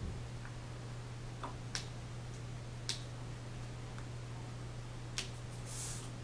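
A handful of faint, scattered clicks and ticks as fingers press an adhesive light-blocking strip onto a wooden shade frame, over a steady low hum.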